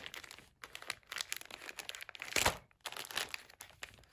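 Plastic courier mailer bag crinkling and crackling as it is handled and worked open, with a louder crinkle about two and a half seconds in.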